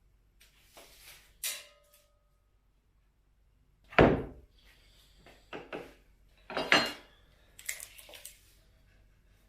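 Tools and materials being handled on a workbench: a sharp metallic clink with a short ring about a second and a half in, then two loud knocks about four and seven seconds in, with smaller clatters and rattles between them.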